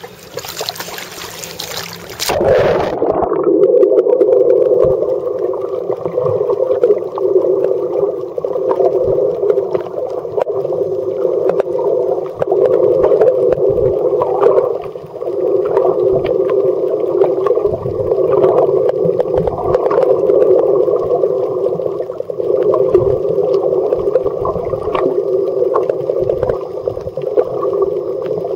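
Surface splashing and wind noise that cuts off about two seconds in as the camera goes under the sea surface. After that comes a steady, muffled underwater rumble with scattered faint clicks and crackles.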